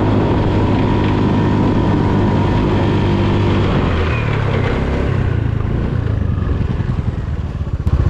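Small belt-drive automatic scooter engine running under throttle up a steep climb. Its pitch drops about four seconds in, and it eases off near the end.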